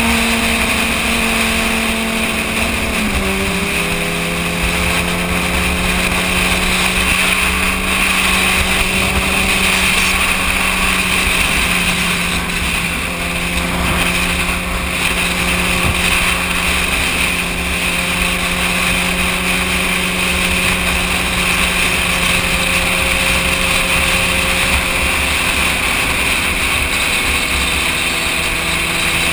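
Sport bike engine running at a steady road speed, with a constant rush of wind and road noise over it. About three seconds in the engine note drops, then holds steady.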